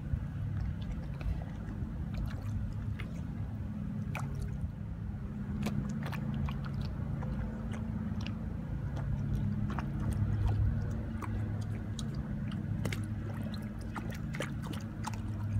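Golden retriever's muzzle working at the water surface: small splashes, lapping and wet mouth clicks as she mouths and drops bread crumbs into the water, scattered irregularly over a steady low hum.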